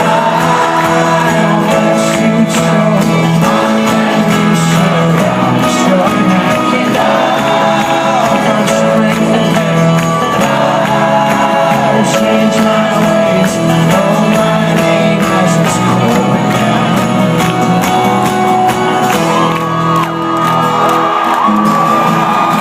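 Live folk-rock band playing an instrumental passage with sustained chords, heard from the crowd, with audience shouts and whoops over the music, most clearly near the end.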